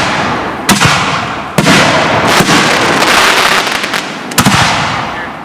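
Consumer fireworks going off in quick succession: three sharp bangs, about a second in, near two seconds and past four seconds. Each trails off into a long rush of crackle and echo.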